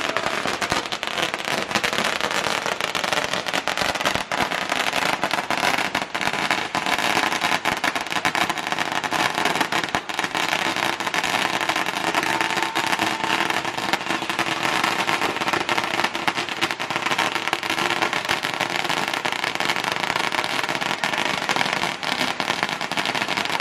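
Fireworks crackling continuously, a dense rapid run of small pops.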